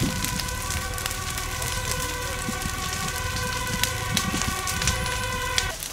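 Burning forest undergrowth and dead branches crackling, with sharp pops scattered throughout. Underneath is a steady whine of several tones, which cuts off at the very end.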